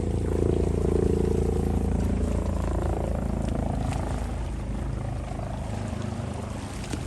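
Aircraft engine drone at an air show, a loud steady rumble with a pitched hum that slowly fades as the plane passes.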